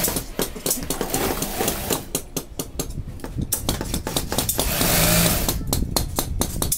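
Industrial sewing machines running in bursts, the motor noise swelling near the start and again about five seconds in, with many irregular sharp clicks and clatters.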